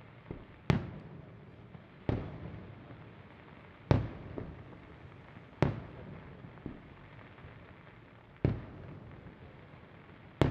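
Aerial firework shells bursting one at a time: six sharp bangs a second and a half to three seconds apart, each dying away over a second or so, with a few fainter pops between them.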